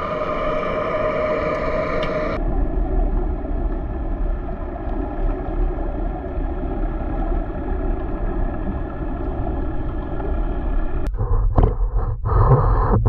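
Underwater sound picked up by a submerged camera: first a steady droning hum with several tones in it, then, after a cut, an even low rumble of water. About eleven seconds in, the camera breaks the surface, with choppy splashing and wind noise that cut in and out.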